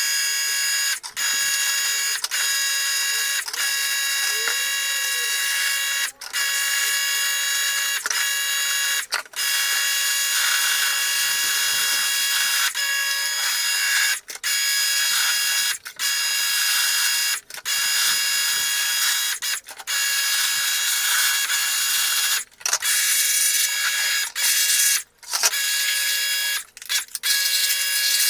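A power tool's electric motor running with a high-pitched whine over a hiss, in runs of a few seconds broken by short stops, more often near the end.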